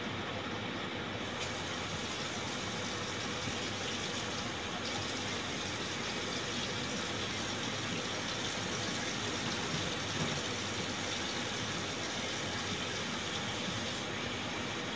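Kitchen tap running in a steady stream, turned on about a second in and off near the end, over a constant fan-like hum.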